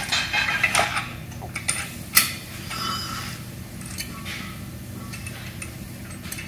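Metal parts clinking and knocking as an air cylinder is fitted into its steel mount with pins: a run of light clicks and one sharper knock about two seconds in, then only a few faint ticks. A steady low hum runs underneath.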